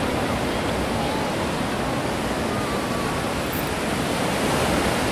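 Steady wash of ocean surf and waves against the shore, with a faint thin call about two and a half seconds in.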